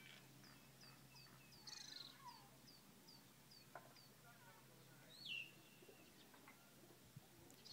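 Faint birdsong: one bird repeats a short high note about three times a second for a few seconds, and another gives a louder falling call about five seconds in, among scattered chirps.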